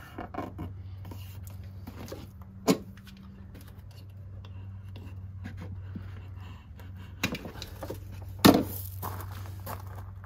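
Handling sounds from fitting a rubber strip along the edge of an aluminium speed square and trimming it with a snap-off utility knife: scattered small clicks and rubbing, with a sharp knock about three seconds in and a louder one near the end. A steady low hum runs underneath.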